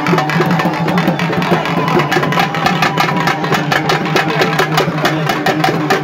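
Live drum ensemble playing loud, rapid strokes over a steady droning tone.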